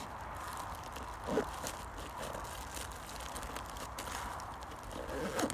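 Faint handling noise of a nylon military pouch being closed up by hand: soft rustles and light ticks, with one soft knock about a second in. A steady low rumble underneath.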